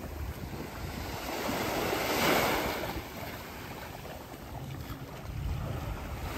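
Small sea waves washing onto the shore, with wind rumbling on the microphone. One wash swells up louder about two seconds in.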